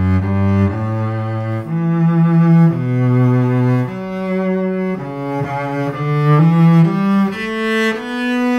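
Cello played with the bow: a slow melody of held notes that starts in the low register and climbs higher toward the end.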